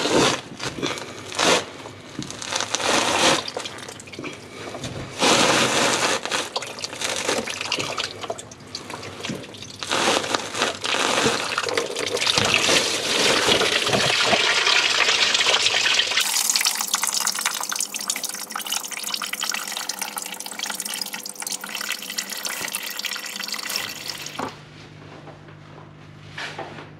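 Engine coolant gushing out of the disconnected lower radiator hose and splashing down onto the floor and into a drip tray. Near the end the pouring gives way to a quieter low hum.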